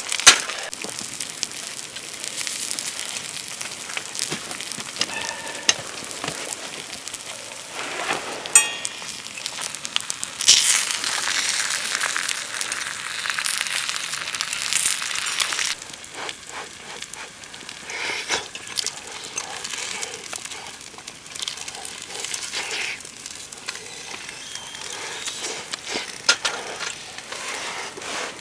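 Food sizzling in a pan, with scattered clicks and light knocks. The sizzle swells about ten seconds in and drops off sharply around sixteen seconds.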